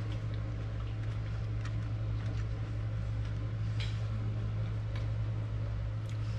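A steady low hum, with a few faint clicks.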